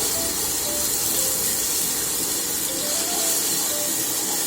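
Onions, ginger-garlic paste and chilli powder frying in hot oil in a biryani pot: a steady sizzle.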